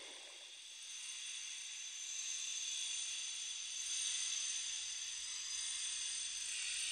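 Faint, steady high-pitched hiss.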